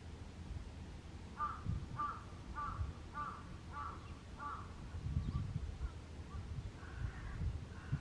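A crow cawing six times in an even series, a little over half a second apart, over a low background rumble.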